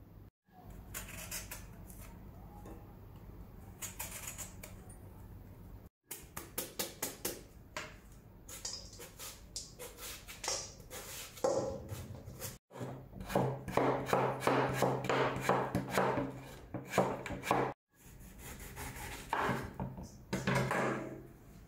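A steel cleaver chopping into a hard green mango in quick runs of sharp strokes, shaving the strips off into a stainless steel bowl, in several short bursts.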